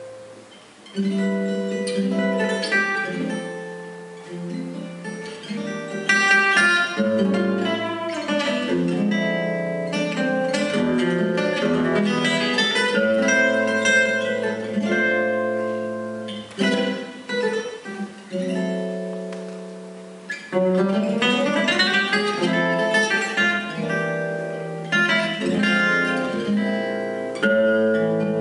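Gypsy jazz acoustic guitar of the Selmer-Maccaferri type, with an oval soundhole, played solo: picked melody notes and ringing chords, with a fast sweeping run about three-quarters of the way through.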